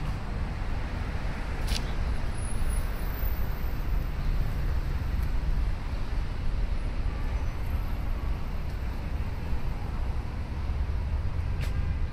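Outdoor city ambience: a steady low rumble of distant traffic, with two faint brief ticks, one about two seconds in and one near the end.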